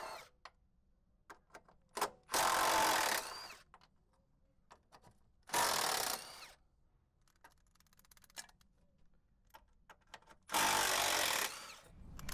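Cordless 3/8-inch impact wrench run in three bursts of about a second each, spinning out 12 mm battery-tray bolts. Small clicks and rattles of the socket and bolts come between the bursts.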